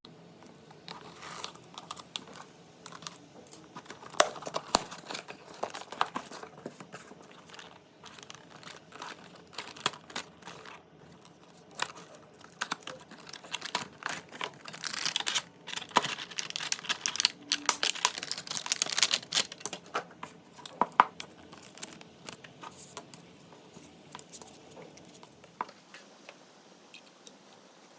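Packaging being handled while a USB-C docking station is unboxed: cardboard and plastic crinkling and rustling, with scattered clicks and light knocks of the box and parts. The busiest, loudest rustling comes a little past halfway through.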